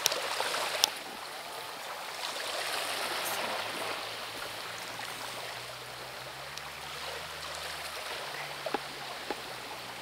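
Small waves washing onto a pebble beach: a steady hiss of water over stones that swells a couple of seconds in, with one sharp click about a second in.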